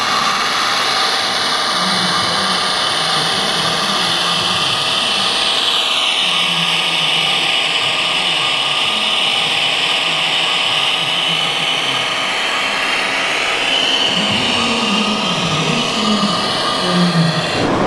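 Small electric motor and gearing of an RC model fire truck whining steadily as it drives, its pitch sliding down about six seconds in.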